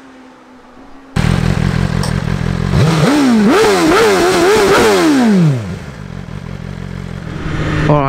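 A 2023 BMW S1000RR M-Sport's inline-four engine, on its standard exhaust, passes at speed. The loud engine note cuts in about a second in, then climbs in quick steps through upshifts. It falls in pitch and fades as the bike pulls away.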